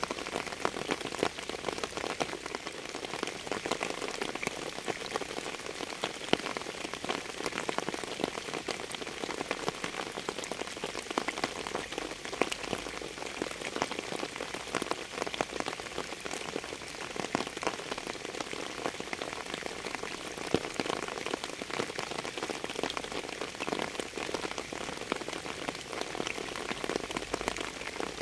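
Steady rain falling on a surface, a dense, irregular spatter of individual drop ticks over an even hiss.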